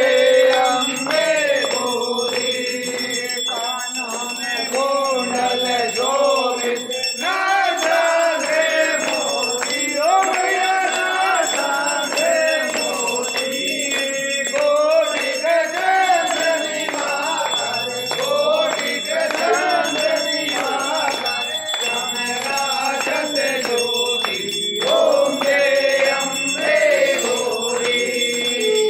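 A group of men singing an aarti (a Hindu devotional hymn) together, with bells ringing steadily over the singing.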